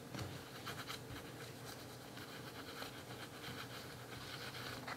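Faint rubbing of a wet cleaning tissue over a phone's camera lenses and glass back, with a few light strokes in the first second.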